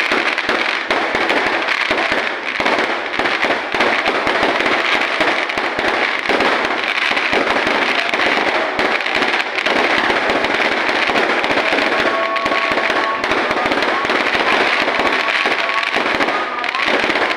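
Fireworks and firecrackers going off in a dense, continuous barrage of rapid bangs and crackles, steady in loudness throughout.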